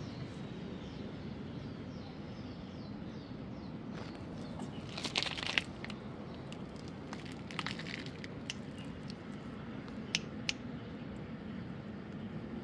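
Steady low street hum with crinkly rustling and crackling a few times, about five seconds in and again near eight seconds, then two sharp ticks around ten seconds: clothing and a hand moving against the cat's fur during petting.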